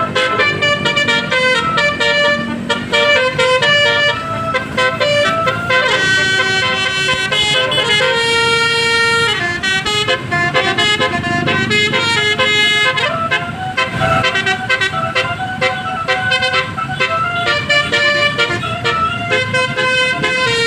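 A bus's basuri musical horn (a 'telolet' horn) playing a melody: a quick run of changing horn notes, with one longer held note about eight seconds in.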